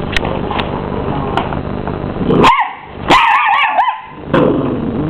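Mini English bull terrier puppy barking at a running vacuum cleaner: one high yap about two and a half seconds in, then a quick run of barks, over the vacuum's steady whir.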